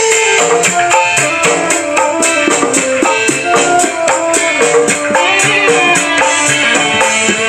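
Dangdut koplo music played live on smartphones: a fast kendang-style drum beat tapped out on a phone pad app, with a melody line over it, through a miniature speaker set.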